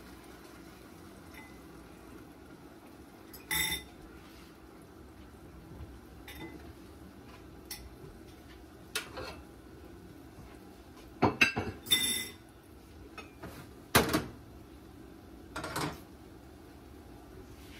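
Dishes and utensils clinking and knocking: a few separate clinks, then a quick cluster of them a little past the middle and one loud knock soon after.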